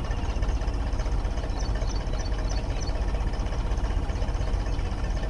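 Tractor engine running steadily at a constant speed, driving a belt-driven water pump.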